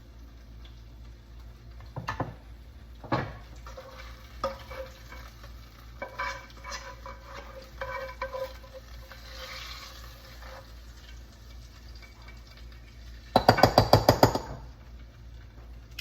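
A spoon stirring and scraping a mixture in cookware, with scattered clinks of the utensil against the dish. About thirteen seconds in comes a quick run of about eight loud, sharp knocks, like a spoon rapped against a rim.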